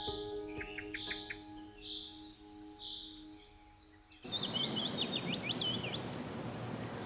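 A cricket chirping in rapid, even pulses, about five a second, over soft sustained musical notes. About four seconds in it cuts off abruptly, giving way to a steady hiss of background ambience with a few short bird chirps.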